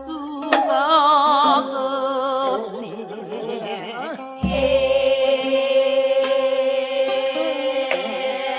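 Korean traditional folk singing (Namdo minyo style) with a strong, wide vibrato and long held notes over instrumental accompaniment, with a deep low thump about four and a half seconds in.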